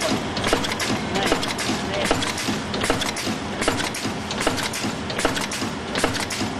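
Four-side-seal multi-track sachet packing machine running: its sealing jaws and drive mechanism make a fast, regular clatter of clicks and knocks over a steady mechanical hum.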